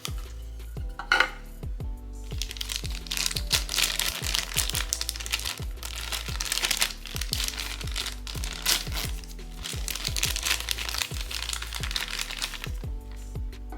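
Plastic blind-box packaging crinkling as it is unwrapped, with a sharp crackle about a second in and steady crinkling from about two seconds in until near the end. Background music with a steady bass line plays underneath.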